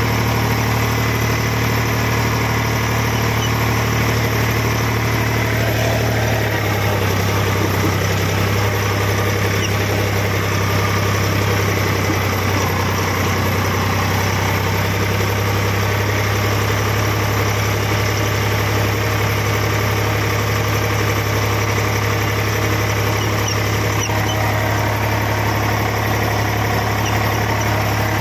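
Diesel tractor engine running steadily as the tractor drives along, heard close from the driver's seat; its note drops slightly about six seconds in.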